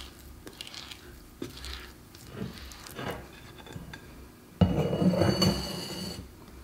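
Hands scraping sticky sourdough out of a mixing bowl, with small soft knocks, as the dough is turned out onto the counter. About four and a half seconds in, the bowl clatters loudly on the stone countertop and rings briefly.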